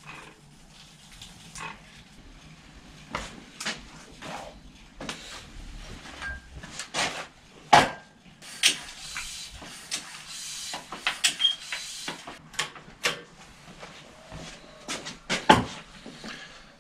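Bicycle chain being greased while the rear wheel and drivetrain are turned: scattered irregular clicks and rattles, with a few seconds of hissing in the middle.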